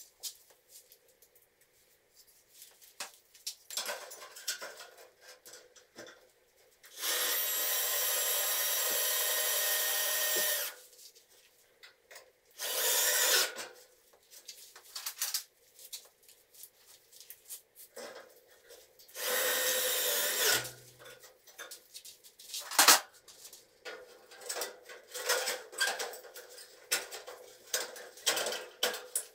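Power drill running in three bursts, the longest about three and a half seconds, the last winding down as it stops. Between the bursts are scraping and clinking from the metal drywall studs being worked, and one sharp knock a couple of seconds after the last burst.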